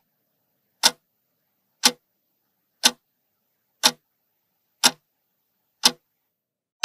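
Clock-tick sound effect marking a countdown timer: one sharp tick each second, about seven in all, with silence between.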